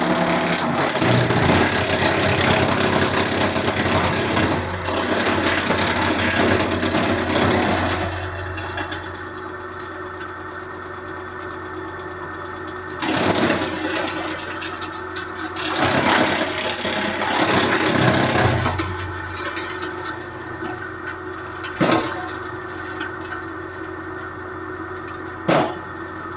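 Wood chipper's engine running steadily, with louder, rougher stretches as material goes through it, and two short sharp knocks near the end.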